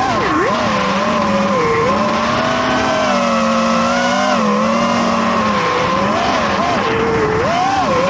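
FPV quadcopter's electric motors and propellers whining in flight, the pitch rising and falling with the throttle, with one steady tone held beneath the changing pitch.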